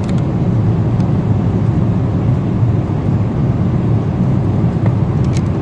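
Steady low roar inside a passenger airliner's cabin in flight: engine and airflow noise, with a few faint clicks near the end.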